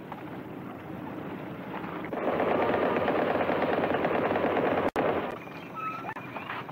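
Rapid automatic gunfire: a dense rattle of shots starting about two seconds in and cutting off a little after five seconds, after a quieter steady noise.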